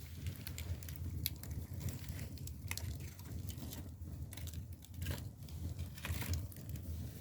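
Split bamboo firewood burning in a traditional Korean agungi firebox, crackling with irregular sharp pops over a steady low rumble of the fire.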